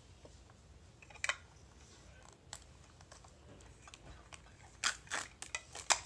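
Plastic wrapping crinkling and small plastic pieces clicking as a toy capsule is unwrapped. Short scattered crackles, thickest near the end.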